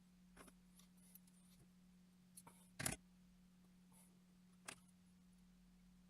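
Scattered small clicks and taps from tools and parts being handled on a workbench, the loudest a sharp double click about three seconds in, over a faint steady hum.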